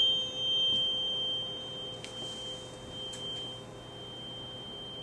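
Struck tuning fork ringing over the mouth of a water-filled resonance tube. It holds one steady pure tone with a fainter high overtone above it, fading slowly, while the water column is lowered to find where the tube resonates.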